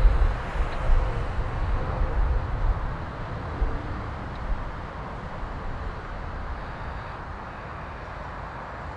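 Outdoor city rumble: an uneven low rumble with a noisy hiss above it, heavier for the first three seconds, then settling into a steadier, quieter hum.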